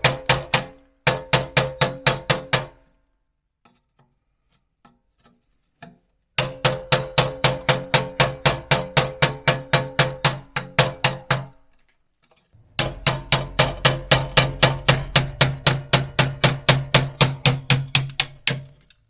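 Music: a quick, steady run of struck, pitched notes, about six a second, that breaks off twice and starts again.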